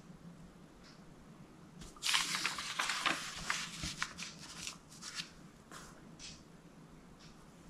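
A page of an old paper booklet being turned by hand: a burst of paper rustling about two seconds in, then lighter crinkles as the page is flattened down.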